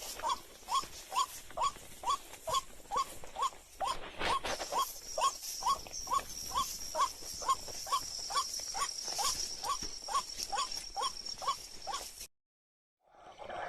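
White-breasted waterhen (ruak-ruak) calling: a long run of short, downward-sliding notes, about two a second, without a break. A steady high whine joins about four seconds in, and all of it cuts off abruptly near the end.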